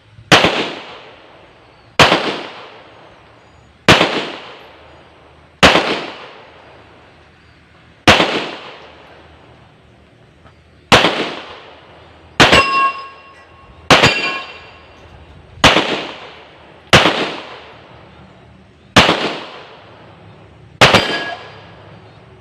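Rock Island Armory Tac Ultra FS HC 9 mm pistol fired slow and deliberately: twelve single shots about one and a half to three seconds apart, each with a short echo, and a brief metallic ring after two of them in the middle.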